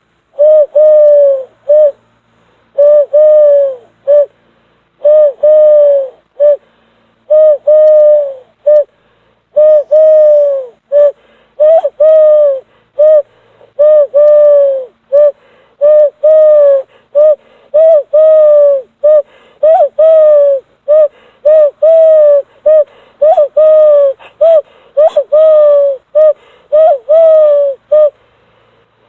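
Hand whistle blown through cupped hands, giving a long series of low, hollow bird-call hoots. Each note dips slightly in pitch, and they come as long notes, often followed by a short one. In the second half the notes come quicker and shorter, with small upward flicks.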